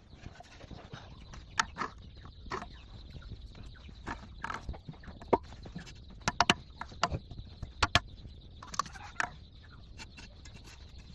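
Irregular knocks and clicks of tools and pipe fittings being handled while a low-level toilet pan is fitted, a few sharp taps standing out among softer ones.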